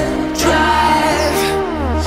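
Background music: a steady bass under pitched synth-like notes, some sliding down in pitch, with two short percussion hits, one about half a second in and one near the end.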